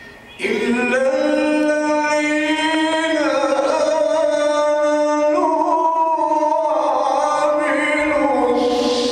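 Male Qur'an reciter (qari) chanting in tajweed style. A single long melodic phrase starts about half a second in and is held to the end, the pitch stepping up and down between long sustained notes.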